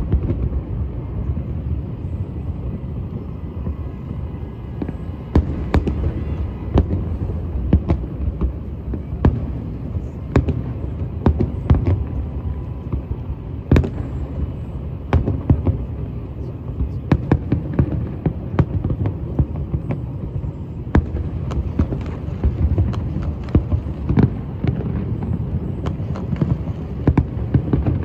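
Fireworks going off: irregular sharp bangs and pops, many in quick succession, over a continuous low rumble.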